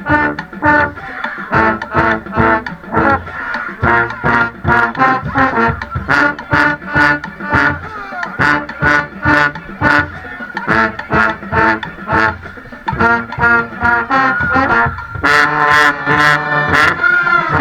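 A marching band playing a stand tune: brass playing short punchy notes over a steady drum beat of about two strikes a second, swelling near the end into a loud held chord with cymbal crashes.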